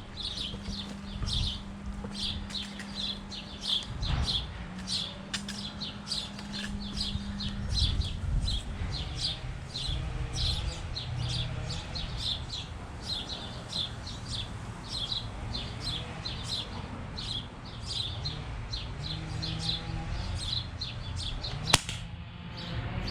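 Single sharp crack of a Crosman American Classic .177 pump pellet pistol firing, near the end. Before it, a bird chirps over and over in short, high, evenly spaced calls.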